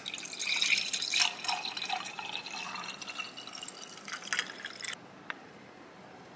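Orange juice poured in a stream into a stemmed drinking glass, splashing and gurgling as it fills; the pour stops about five seconds in.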